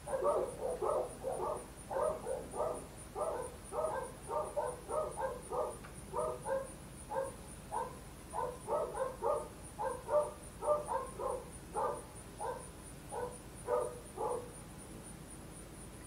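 An animal giving short calls over and over, two or three a second, for about fourteen seconds before stopping. A faint, high, steady trill runs underneath.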